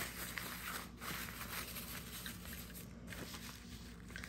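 Handling noise: fabric pen pouches rustling, with a few faint clicks as pens are moved on the tabletop.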